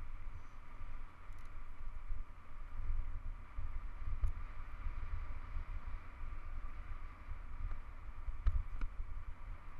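Wind buffeting the microphone of a camera riding on a hardtail mountain bike descending a dirt road, a heavy fluttering rumble, over the steady rushing noise of the bike rolling on loose dirt, with a few faint clicks from small stones.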